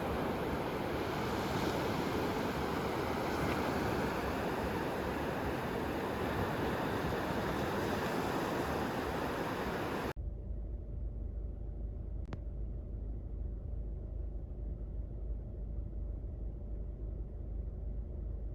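Sea surf and wind for about ten seconds, then a sudden cut to the steady low rumble of a car driving, with a single faint click a couple of seconds later.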